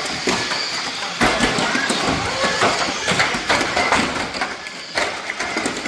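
Radio-controlled banger cars racing on a carpet track: a high steady motor whine, with a quick run of plastic knocks and clatter as the ABS-bodied cars bump and crash into one another. Voices in the hall are faint behind.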